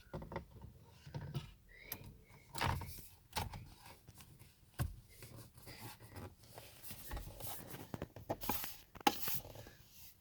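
Plastic trim pieces of a car's center console being handled and fitted: scattered light clicks, knocks and rustling.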